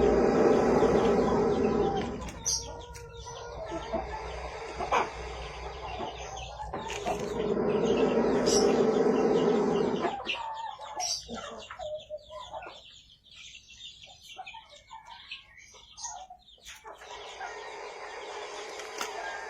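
A large rat snake breathing with a rasping, snore-like sound in two long, loud breaths: one in the first two seconds, the other from about seven to ten seconds in. Chickens cluck in the background.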